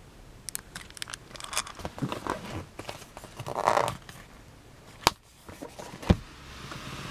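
A hand handling a car's cloth-covered sun visor: rustling and scraping with light clicks, then a sharp click about five seconds in and a dull thump about a second later.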